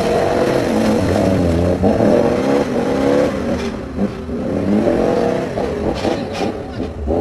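Car engine revving sound, its pitch rising and falling in repeated waves, with a few sharp clicks about six seconds in.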